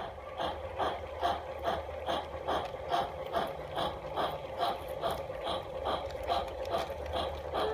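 Synthesised steam chuffing from a G-scale model steam locomotive's digital sound decoder, about four even chuffs a second, over a steady hum and the low rumble of the train running on the track. A chord whistle starts right at the end.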